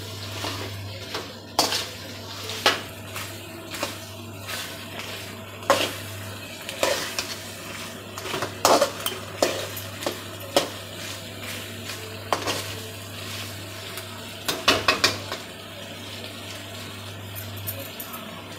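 A spatula stirs chicken pieces in thick masala in a metal kadai, scraping and knocking against the pan at irregular moments, over a light sizzle of frying.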